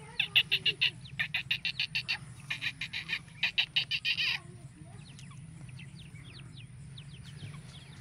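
Black francolin giving a harsh, rapid rattling call in four quick runs during the first four seconds. Faint chirps of small birds follow.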